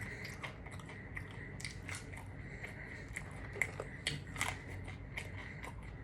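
A person eating a KFC dinner: biting and chewing with many small irregular clicks, a few louder ones a little past the middle.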